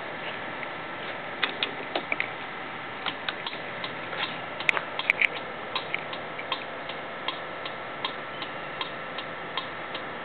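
Kymco Downtown 300i scooter's turn-signal flasher ticking at an even pace of about two to three ticks a second, over a steady hum. Before the rhythm settles, near the start and around the middle, come some irregular clicks, a few of them louder.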